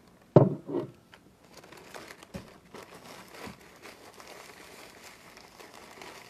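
Clear plastic bag crinkling and rustling as it is handled and opened to pour out charcoal, after a brief loud bump about half a second in.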